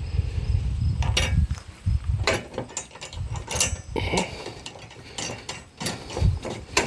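Irregular metal clicks and scraping as a spring and nut are fitted by hand onto a bolt through a steel plate of a cement mixer.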